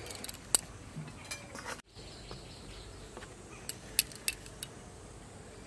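A few light clinks and taps of steel plates and bowls while dough is handled, some in the first second and a half and a small cluster about four seconds in, over faint outdoor background.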